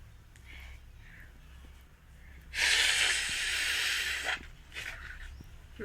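A person blowing their nose hard: one loud, breathy blast lasting under two seconds, with faint breathing before it and small sniffs after.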